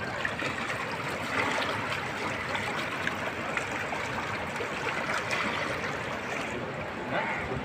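Floodwater rushing, a steady, even noise of fast-flowing water.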